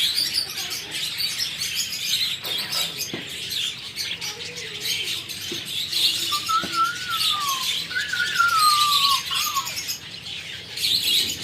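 Many small birds chirping and twittering continuously, with two longer whistled calls that slowly fall in pitch a little past the middle.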